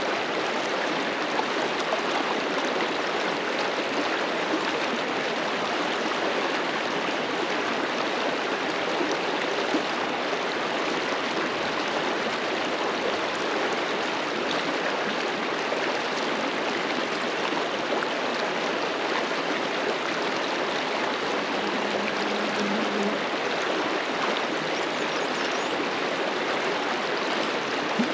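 River flowing over rocks: a steady rushing of water.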